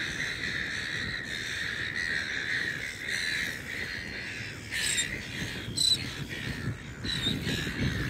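Outdoor natural ambience: a steady high-pitched chirring, with two short sharp clicks about five and six seconds in.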